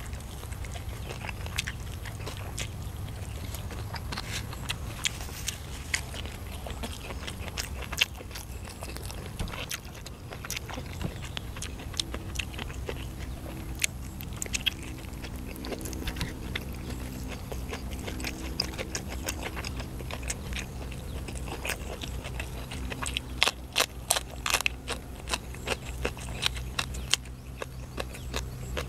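Close-miked eating sounds: a person biting and chewing grilled chicken, with wet mouth clicks and smacks. The crunching and clicking grows denser and louder near the end.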